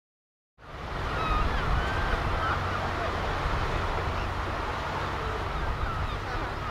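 Seaside ambience fading in: wind rumbling on the microphone over a steady wash of surf, with a few distant high cries.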